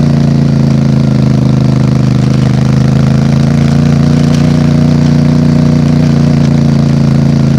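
An MT450 engine idling steadily at an unchanging speed, its plain exhaust note with no revving.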